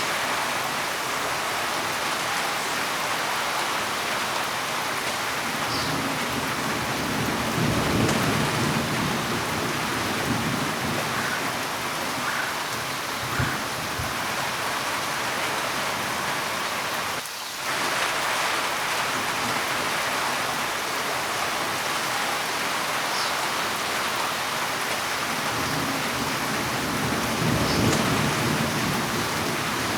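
Steady heavy rain with low rumbles of thunder, one building about seven seconds in and another near the end.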